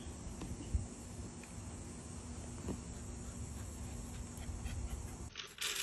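Steady, faint, high-pitched insect chirring over a low background rumble; a little over five seconds in it gives way to a short burst of hiss.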